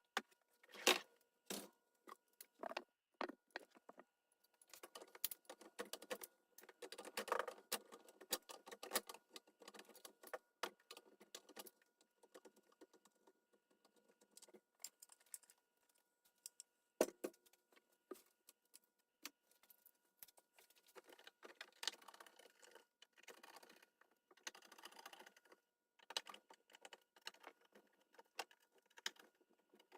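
Scattered clinks, rattles and knocks of hard parts being handled, in uneven clusters with short pauses. A sharp knock about a second in and another about 17 seconds in are the loudest.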